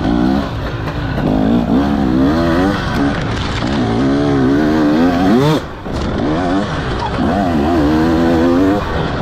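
2024 KTM 300 XC-W two-stroke dirt bike engine, fitted with an Akrapovic slip-on exhaust, revving up and down over and over as the throttle is worked through an enduro trail section. About five and a half seconds in, the revs climb and then drop sharply as the throttle is chopped, before the engine pulls again.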